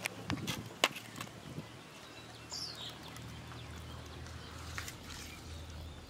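A hand mixing powdered sugar into raw-mango pulp in a steel bowl: a few sharp clicks and knocks against the bowl near the start, the loudest about a second in, then soft handling sounds over a steady low hum. A bird gives one short falling chirp midway.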